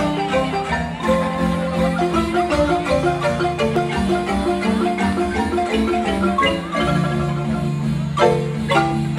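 Marimba ensemble of two large wooden marimbas playing a lively tune: quick melody notes over long held bass notes, with two sharp accented strokes near the end.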